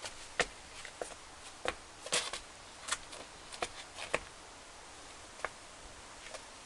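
A series of light, irregularly spaced clicks and taps, about a dozen, over a quiet background.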